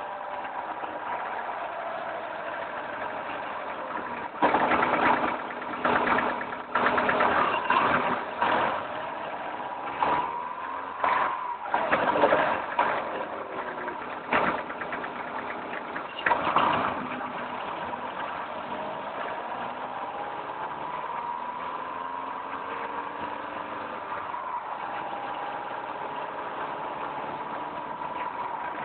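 Volkswagen Mk4 Golf running at low speed, with a steady whine that slowly rises and falls in pitch. From about four seconds in, a string of loud, irregular noises in short bursts comes and goes, stopping about seventeen seconds in: the car's unexplained strange noise.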